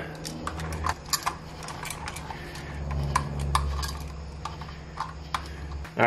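Small metallic clicks and light rattling of a wall switch and copper wire being handled, as a wire is worked onto the switch's screw terminal. A low steady hum sits under the clicks.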